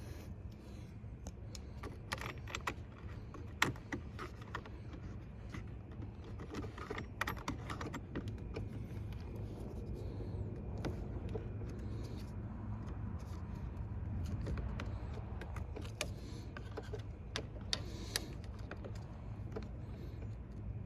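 Scattered small clicks and light metallic rattles from a replacement headlight switch and its fittings being handled and worked into place under the dash, over a steady low hum.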